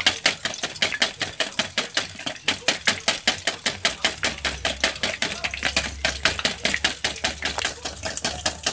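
Egg being beaten by hand in a bowl: quick, regular clicking strokes of the utensil against the bowl, about six a second.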